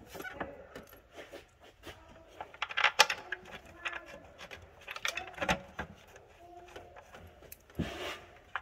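Scattered light clicks, taps and small metallic rattles of parts and tools being handled in a car's engine bay, with a few sharper knocks about three seconds in, five and a half seconds in and near the end.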